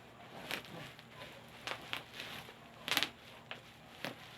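Plastic packaging, such as bubble wrap, crackling as it is handled. There are a handful of irregular sharp crackles, the loudest about three seconds in.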